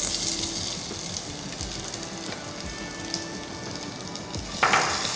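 Sliced onions and whole spices sizzling in hot ghee in a saucepan; the sizzle rises suddenly as the onions drop in, then carries on as a steady crackling hiss.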